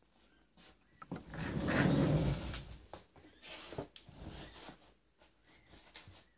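Handling noise: a paper instruction manual rustling and flapping in the hands, with the bumps and rubbing of the camera being moved, heaviest about two seconds in and then trailing off into lighter rustles and clicks.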